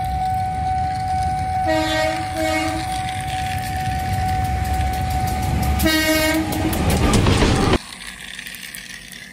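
Train sound effect: a steady rumble with a held tone under it, and a horn giving two short toots about two seconds in and another near six seconds. It cuts off suddenly near eight seconds.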